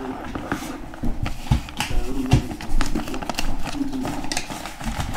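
Indistinct voices in the background, with scattered clicks and knocks of handling.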